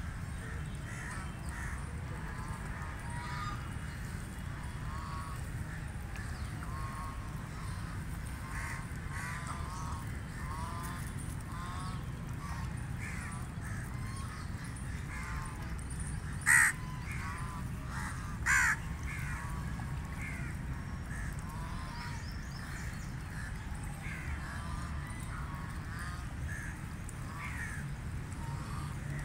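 A flock of domestic ducks quacking again and again, many short calls overlapping, with two louder calls about two-thirds of the way through.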